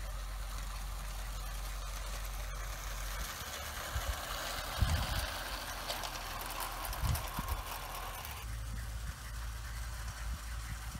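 Tinplate O gauge model goods train rolling past on garden track, a rattling hiss of wheels on the rails. It builds, is loudest for a few seconds in the middle, and drops off suddenly, with a few low thumps mixed in.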